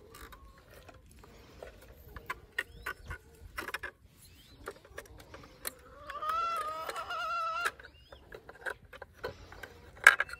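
A farm animal's long, wavering call of about two seconds, starting about six seconds in, over scattered small clicks and knocks. A sharp knock near the end is the loudest sound.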